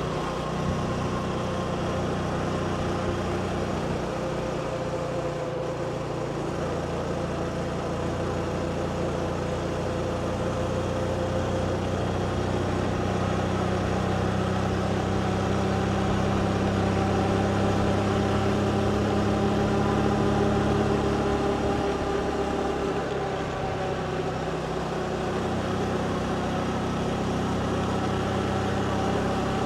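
Motorbike engine running steadily while riding, with road and wind noise; the engine grows a little louder past the middle and eases off again.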